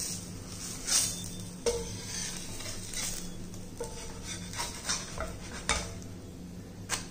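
Steel spatula scraping and clicking against a cast-iron dosa tawa as a cooked oats dosa is worked loose and lifted off, in short separate strokes over a steady low hum and a faint sizzle.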